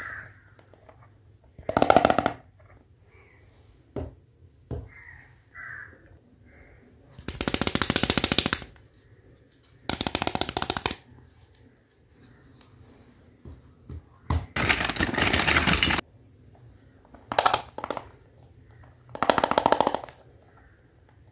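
Small plastic toy kitchen pieces handled and knocked against each other in about six short bursts of rapid clicking and rattling, the longest two about a second and a half each.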